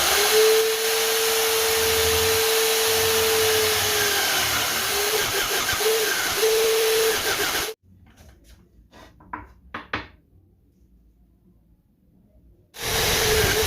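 A homemade sanding drum spun by a drill motor, running with a steady whine while it sands wood. The pitch sags for a moment under the load. It cuts off suddenly, a few light knocks follow, and then it starts again near the end.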